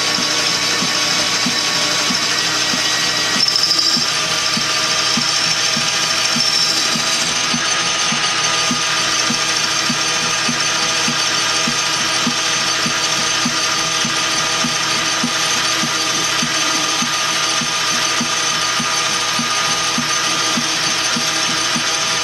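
Metal lathe running under power while the tool takes a cut along a metal tube: a steady mechanical whir with a regular ticking a few times a second.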